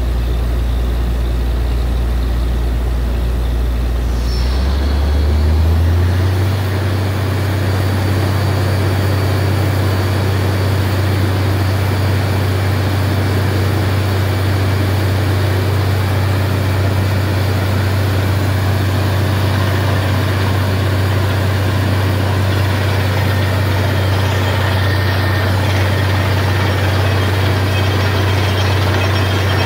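Heavy engine of a borewell drilling rig running steadily; about five seconds in its speed steps up to a higher pitch and holds there.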